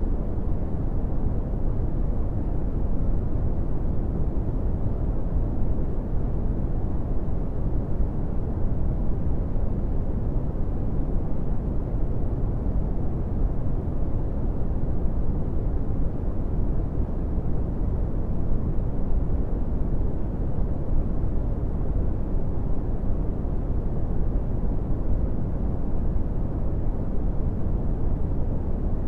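Brown noise: a steady, deep, even hiss weighted heavily to the low end, with no tones and no changes in level.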